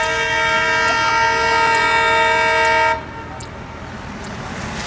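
Indian Railways locomotive air horn blowing one long steady chord that cuts off sharply about three seconds in. The running noise of the train follows, growing a little louder toward the end.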